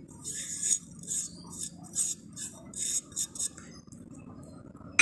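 Kitchen utensils clinking and scraping in a quick run of short strokes as spice powders are added to a clay pot of cut bitter gourd, going quieter after about three and a half seconds.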